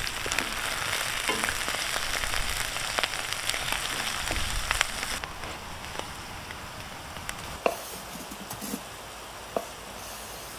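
Mushrooms sizzling in a frying pan as they are stirred with a wooden spatula, with light clicks and scrapes of the spatula. About halfway through, the sizzle stops abruptly, leaving only the odd tap and scrape.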